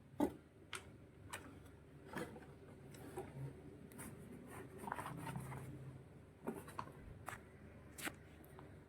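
Faint handling noise: a scattered series of light clicks and taps, about seven over the stretch, with some rubbing and scraping between them, as small parts are handled.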